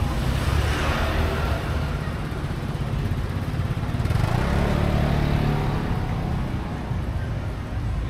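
Street traffic: motor vehicles running and passing close by over a steady low rumble. One passes about a second in, and a louder engine hum swells about four to five seconds in.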